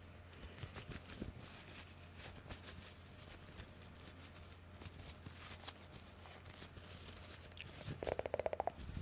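Faint scattered clicks and taps over a steady low hum, with a brief rapid rattle about eight seconds in.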